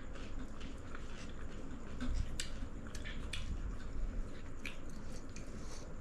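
Someone chewing food, with scattered small clicks.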